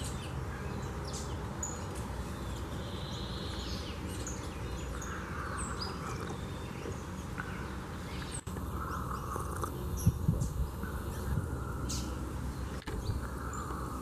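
Scattered short, high chirps from a feeding flock of small seed-eating birds, saffron finches and seedeaters, over a steady outdoor hiss. A few low knocks come about ten seconds in.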